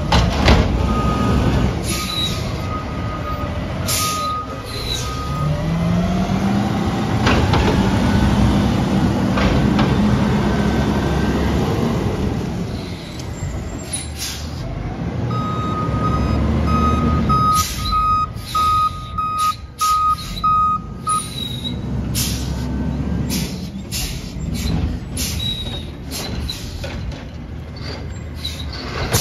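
Automated side-loader garbage truck working: its diesel engine runs and rises in pitch around five to seven seconds in, a backup alarm beeps in two spells, near the start and from about fifteen to twenty-one seconds, and short air hisses and clanks come through.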